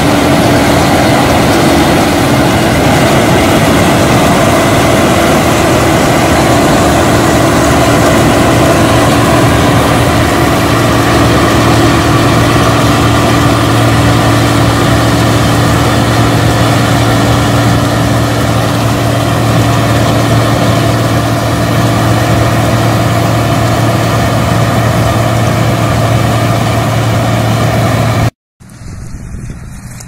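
Older New Holland combine harvester running at work, its engine and threshing machinery making a loud, steady mechanical drone with a low hum that grows stronger about a third of the way in. The drone cuts off suddenly near the end and a quieter machine sound takes over.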